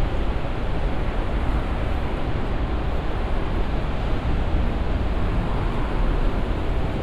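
Steady city street noise, mostly a continuous low traffic rumble, with no single sound standing out.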